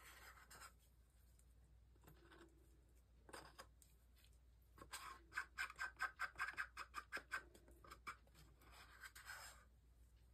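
Thin wooden stick scraping the last of the epoxy resin out of a paper cup: faint, scratchy strokes, a few single ones, then a quick run of about five a second through the middle.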